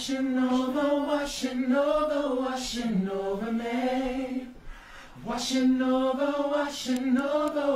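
A small group of gospel backing singers singing together without instruments, in two phrases with a brief break a little past halfway.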